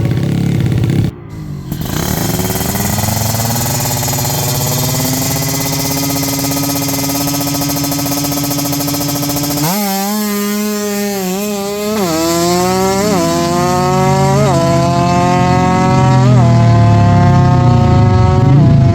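Drag-racing motorcycle engine at high revs, held fairly steady at first. About halfway through it accelerates hard through the gears, its pitch climbing and then dropping sharply at each of about four upshifts.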